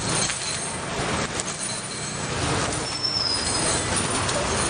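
Street ambience: traffic noise running steadily around a herd of elephants crossing the road, with a brief high-pitched tone a little after three seconds in.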